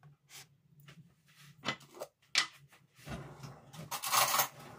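Kitchen handling noises as garlic goes onto chicken being marinated: a few light knocks and clicks, then a longer rustling, scraping stretch about three seconds in, the loudest part, over a low steady hum.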